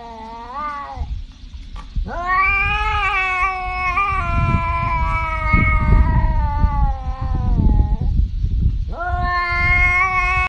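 Tabby cat yowling in long, drawn-out calls: a short one ending about a second in, a long one of about six seconds that rises at the start and slowly falls, and another starting near the end. A low rumble runs underneath.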